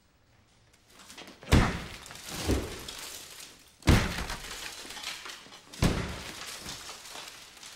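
A hammer smashing into a plaster ceiling: three heavy blows about two seconds apart, each followed by the clatter of falling debris.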